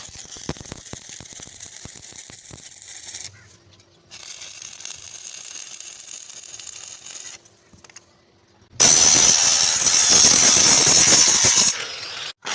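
Metalworking noise in separate short cuts: a crackling hiss with scattered clicks, then, from about nine seconds in, a much louder steady high-pitched noise of a power tool working metal.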